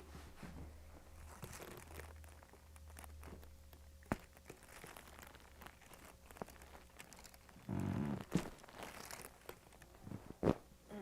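Faint rustling and crinkling, with a few sharp clicks; the loudest click comes about ten and a half seconds in.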